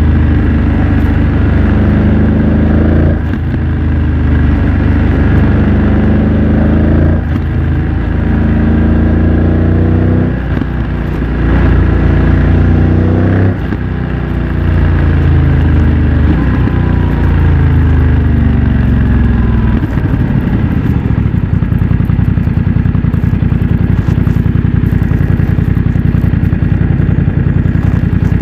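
BMW F900 XR's parallel-twin engine through a MIVV X-M1 aftermarket exhaust, accelerating hard with the revs climbing and breaking off sharply at several quick upshifts. It then slows with the revs falling gradually, and about twenty seconds in it settles to a steady idle.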